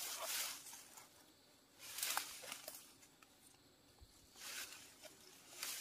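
Rustling and scuffing from hands handling a bamboo trap and the squirrels caught in it among branches and leaves. It comes as about four short bursts, the loudest at the start and about two seconds in.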